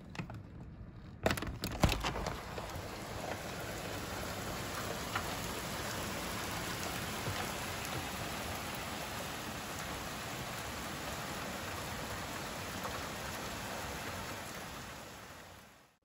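Steady rain falling on an asphalt-shingle roof and a wet street, an even hiss. A few sharp knocks sound about a second in, and the rain fades out at the very end.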